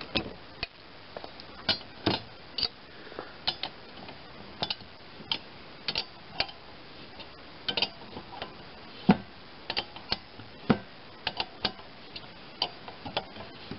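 Irregular sharp metallic clicks and clinks of combination wrenches working the nut and bolt of a mower deck's belt-tension adjusting rod: one wrench holds the nut while the other turns the bolt.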